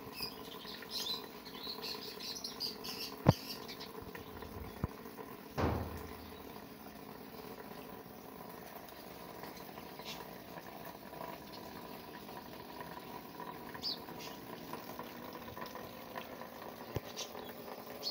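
A small bird chirping in a quick run of high twitters, with a few more scattered chirps later. A sharp click and, a couple of seconds after it, a dull thump stand out over a faint steady background.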